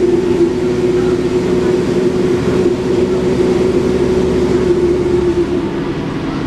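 Onboard sound of an Alexander Dennis Enviro 400 double-decker bus with a Cummins ISBe diesel under way: engine and drivetrain running with a steady whine, which drops in pitch and eases off slightly about five and a half seconds in.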